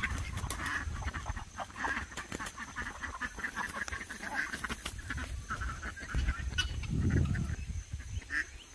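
Backyard poultry calling: scattered short squawks and honking calls from a mixed flock of chickens, ducks and guineafowl, with a louder low rumble about seven seconds in.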